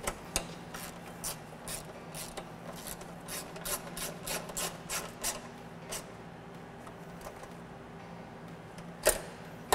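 Ratchet with a 10mm socket tightening a hood latch bolt: a short rasping click-run of the pawl on each back-stroke, about three a second for the first six seconds. A single louder knock comes near the end.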